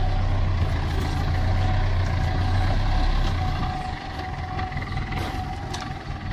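Nissan Patrol 4x4's engine running at low revs as it crawls away along a rough trail, a deep steady hum that drops in level about four seconds in. A couple of light knocks about five seconds in.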